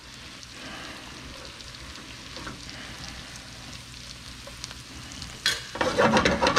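Chicken, onions and garlic frying in a pan, sizzling steadily. Near the end there is a short burst of clattering and scraping in the pan, louder than the sizzle.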